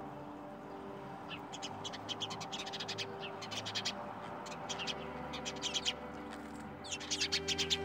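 A fine-tip pen scratching on sketchbook paper in quick short strokes, in irregular clusters, over soft background music with held tones.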